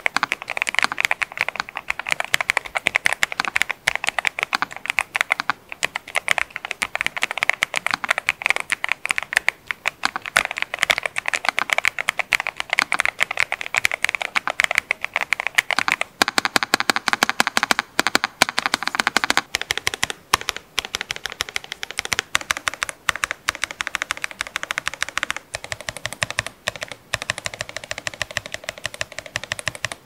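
Fast continuous typing on a NuPhy NOS75 low-profile mechanical keyboard, bottom-mounted and packed with foam dampeners: a dense run of keystrokes with a full, thocky sound and no hollowness.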